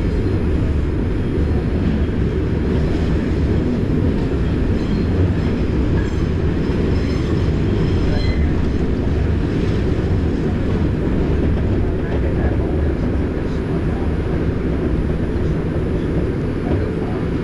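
New York City subway train (the 5 express) running at speed, a steady loud rumble of wheels on track heard from inside the car. A faint high wheel squeal comes and goes in the middle.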